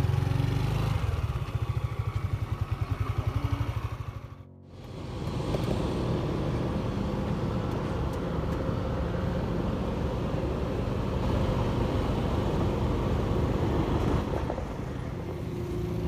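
Road traffic, mostly motorcycles. A low, fast engine pulsing runs for the first four seconds or so, breaks off briefly, then gives way to a steady wash of passing traffic.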